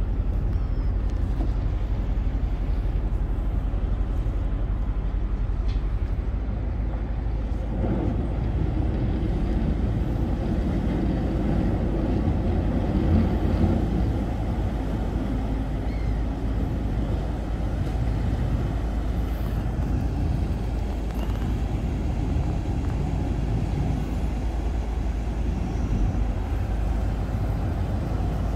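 Sightseeing riverboat's engine running steadily, a low hum heard on board, growing louder and rougher for several seconds from about eight seconds in.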